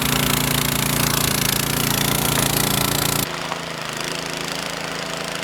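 An engine running loudly with a rapid pulsing beat. About three seconds in it drops suddenly to a quieter, steady engine hum.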